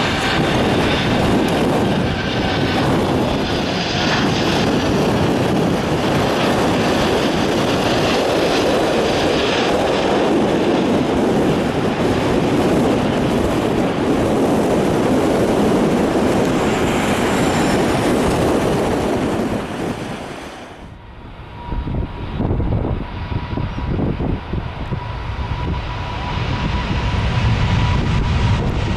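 Loud jet airliner engine noise as a widebody passes close by, mixed with heavy wind buffeting the microphone. About two-thirds of the way through, the sound cuts abruptly to quieter gusty wind noise with a faint steady whine.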